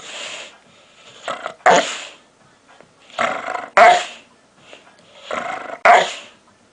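Dog making a run of growl-barks: each a short growl that ends in a sudden loud bark, repeated about every two seconds, three times.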